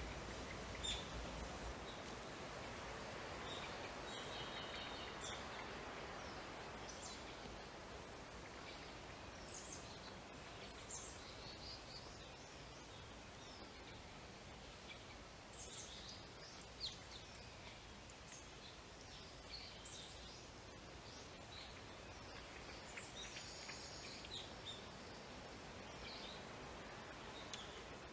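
Outdoor ambience of birds chirping: many short, scattered high calls and a couple of brief quick trills over a soft, steady background hiss.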